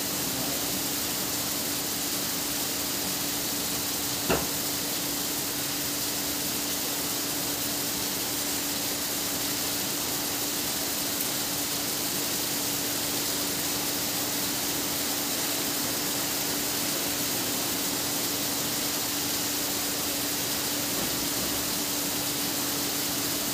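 Steady hiss of rain falling, with a faint steady hum underneath and a single sharp tap about four seconds in.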